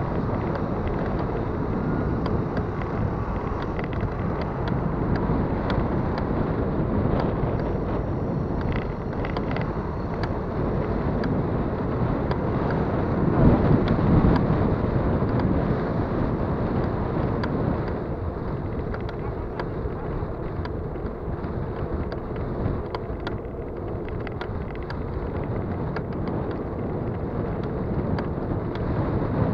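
Bicycle in motion with wind on the microphone and many small clicks throughout from the bike's drivetrain, which sounds like a bucket of bolts: the bottom bracket is shot and the rear sprocket and chain are worn. The noise swells louder about 13 seconds in.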